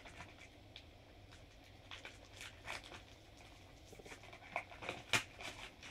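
Clear plastic wrapping crinkling and rustling as a small music player is handled and unwrapped, with scattered light clicks. The handling grows busier near the end, with one sharper click about five seconds in.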